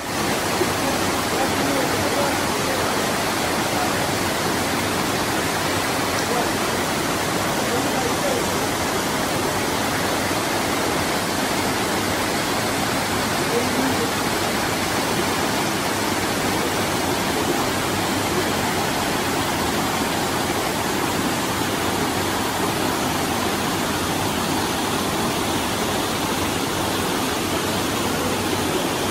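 Water cascading down a series of small waterfalls into pools: a steady, even rush of falling water that fades in at the very start.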